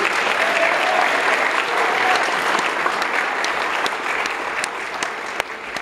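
Audience applauding, a dense patter of many hands clapping that is loudest in the first two seconds and slowly tapers off toward the end.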